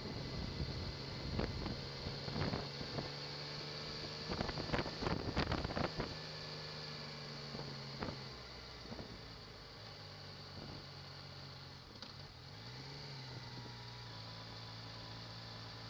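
Motorcycle engine running steadily on the move, with wind buffeting the microphone in loud gusts over the first six seconds. About twelve seconds in the engine note changes and settles lower.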